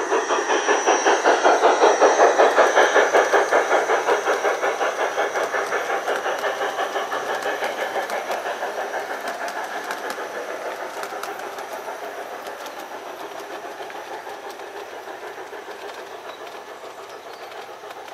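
G-scale LGB garden-railway train running past, making a rapid, even beat of about five a second that is loudest about two seconds in and fades as the train moves away.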